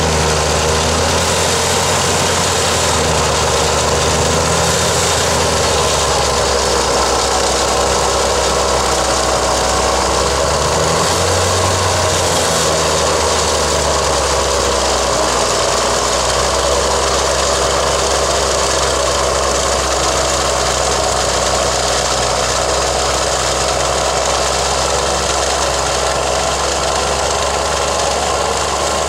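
John Deere tractor's engine running steadily under load, driving a front-mounted Teamco Snowblast snowblower as it throws deep snow: a low engine drone under a steady rushing hiss.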